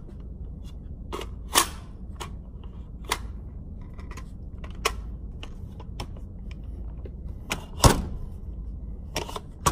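Sharp metallic clicks and clacks of an AR-15 pistol's action being worked by hand, about eight irregular strokes with the loudest near the end, as the shooter deals with a malfunction. A steady low hum runs underneath.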